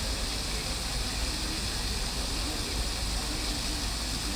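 Triton Fountain's water jets splashing steadily into the basin, an even rushing hiss, with people's voices faint underneath.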